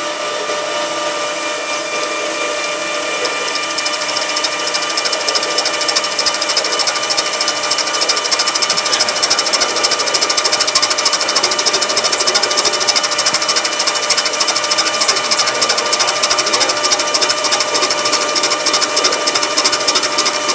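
Metal lathe running with a 3/4-10 tap in the chuck, hobbing the teeth of a worm wheel that the tap drives around. A steady whine under a dense, rapid ticking from the cut, getting louder over the first several seconds.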